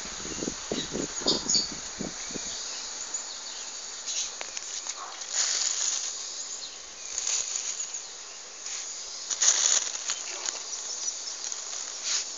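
Outdoor ambience: several short low knocks in the first two seconds, then repeated surges of high hissing noise, with faint chirping, likely from insects.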